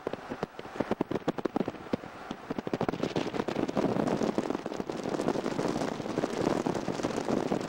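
Wind buffeting the camcorder microphone: a rapid run of crackling pops for the first few seconds, then a steady rushing noise.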